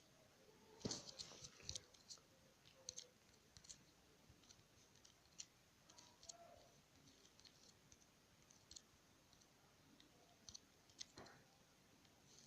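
Faint, irregular clicks and taps of fingers on a phone's touchscreen, with a short flurry of louder taps about a second in and another near the end.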